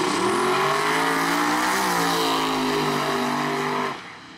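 Twin-turbo Chevrolet Nova drag car launching off the start line at full throttle. The engine note climbs quickly, then holds high and steady as it pulls away. The sound drops away suddenly near the end.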